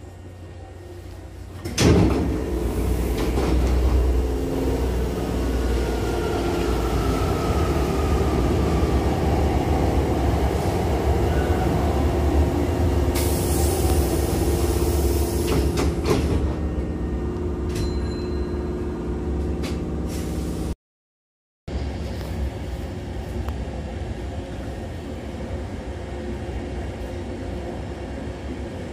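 Hankyu commuter train's sliding passenger doors opening with a sudden loud thump about two seconds in. About sixteen seconds in they close after a few seconds of high hiss, ending in a click, with the stopped train's low hum throughout.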